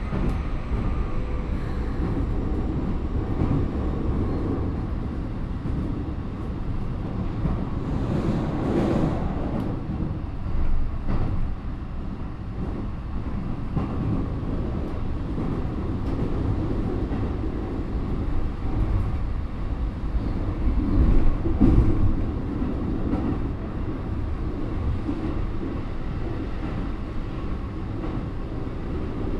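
Keikyu 1000-series electric train running at speed, heard from inside the car: a steady rumble of wheels and bogies on the track, with louder surges about 9 and 21 seconds in.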